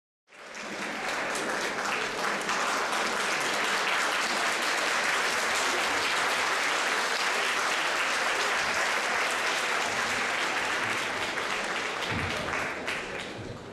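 A theatre audience applauding. It starts at once and dies away near the end.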